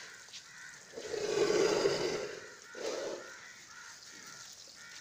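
A freshly slaughtered bull's harsh, rasping breaths, twice: a long one about a second in and a short one near the middle.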